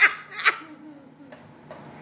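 A person laughing in short, evenly spaced bursts, the last two in the first half second, then dying away to a quiet room.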